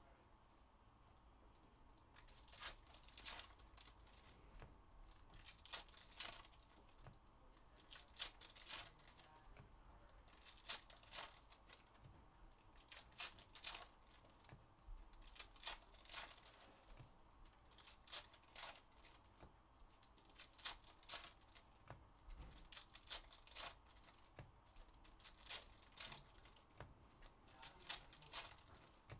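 Foil trading-card packs being torn open and crinkled by hand: short sharp rips and crackles in clusters every couple of seconds.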